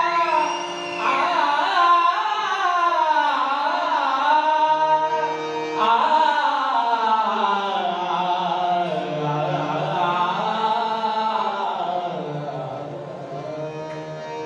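A male bhajan singer sings in a high, ornamented melody, his pitch sweeping up and down over steady held harmonium tones. The music tails off over the last couple of seconds.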